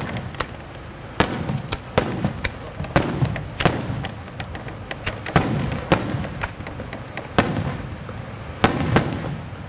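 Aerial firework shells from St. Mary Fireworks Factory (Malta) bursting in an irregular series of about a dozen sharp bangs, each trailed by a rolling echo.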